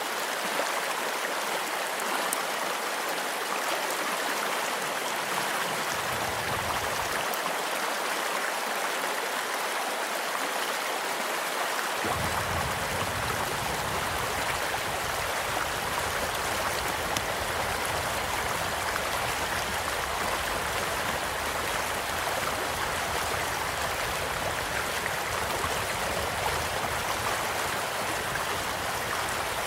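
Steady rushing of a gently flowing stream, with faint occasional crackles of a campfire.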